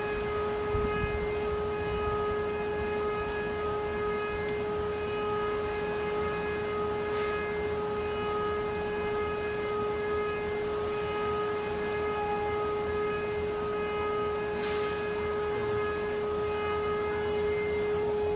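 High-speed spindle motor of a CNC engraving machine running with a steady high-pitched whine that holds one pitch, over a constant machine hum.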